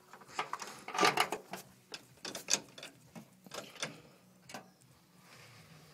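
Irregular mechanical clicks and clunks from the controls of a David Brown 990 tractor being handled, the loudest about a second in and again about two and a half seconds in.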